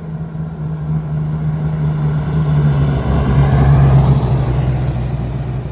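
A car engine running at low revs, a steady low drone, with a rushing noise that swells to a peak about four seconds in and then eases off.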